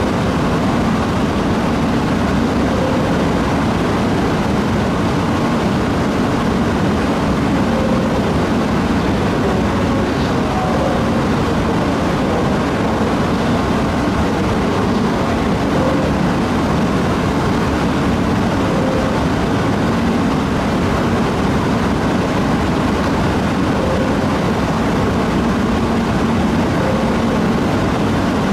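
Steady low rumbling hum of Shinkansen trains at a station platform as the E926 East-i inspection train rolls slowly in beside a standing train.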